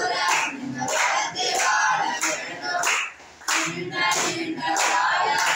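A group of boys singing a birthday song together, clapping in time about twice a second.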